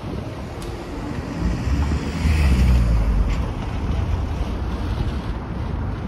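Town street noise with wind buffeting the microphone, and a car passing close by, loudest about two to three seconds in.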